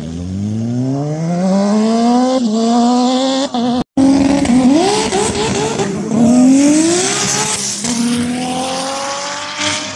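Go-kart engine revving up and rising steadily in pitch as the kart spins donuts. After an abrupt cut about four seconds in, car engines rev repeatedly, then rise in pitch as cars accelerate away from a drag strip start line.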